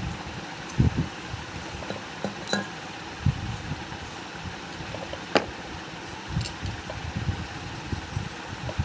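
Hand-handling noises from a ceiling fan being dismantled as its wires are pulled out: scattered soft knocks and a few sharp clicks, the sharpest about five seconds in, over a steady hiss.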